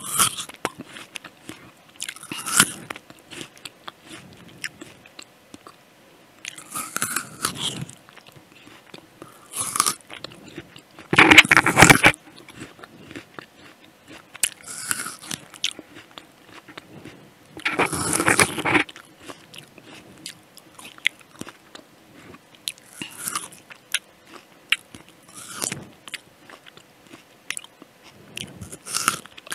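Crisp, juicy Jazz apple being bitten and chewed close to a headset microphone: a series of separate crunching bites, the two loudest a little before and a little after the middle, with quieter chewing crackles between.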